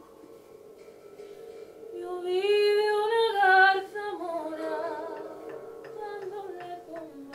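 A woman's voice singing slowly and unaccompanied. It starts soft and hummed, swells about two seconds in to a loud held line, then falls away in a descending melody. Sharp clicks start near the end.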